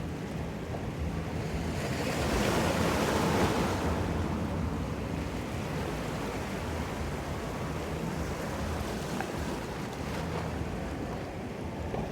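Ocean surf washing in, with one wave surging louder about two seconds in and then hissing back down. Wind buffets the microphone with a low rumble.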